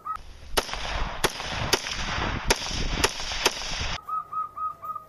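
Toy assault rifle's electronic gunfire sound effect: a hissing burst with about six sharp cracks, lasting about four seconds and cutting off abruptly.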